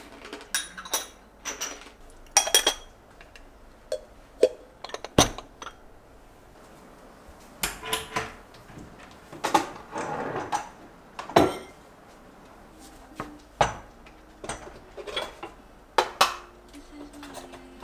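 Kitchen utensils, pots and dishes clinking and knocking while cooking: irregular separate taps and clinks, some ringing briefly, with a short scrape about ten seconds in.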